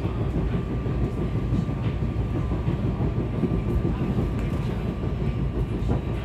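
Inside a SEPTA Regional Rail electric commuter train running along the line: a steady low rumble of wheels on track, with a faint steady whine and a few light clicks from the rails.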